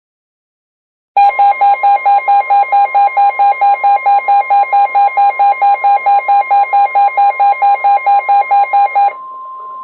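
NOAA Weather Radio warning alarm: a steady 1050 Hz tone starting about a second in, with a weather radio's own alert beeping rapidly over it, about four beeps a second. The beeping stops about a second before the steady tone ends, marking the start of a warning broadcast.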